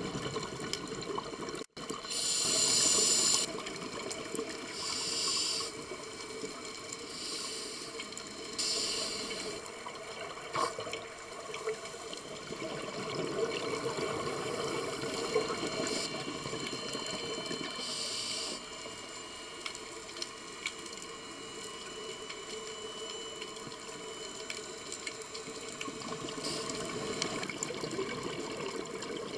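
Scuba regulator exhaust: bursts of bubbles from exhaled breaths every few seconds, with a longer gap in the middle, over a steady underwater hiss, heard muffled through an underwater camera housing.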